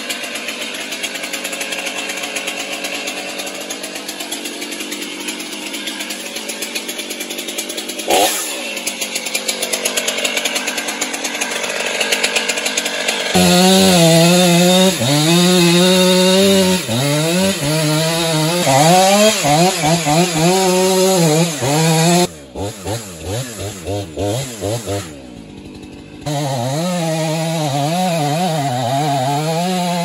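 Gas chainsaw idling, then cutting into the base of a standing tree trunk, its engine pitch dipping and recovering as the chain bites into the wood. It eases off to idle for a few seconds near the end, then cuts again at full throttle.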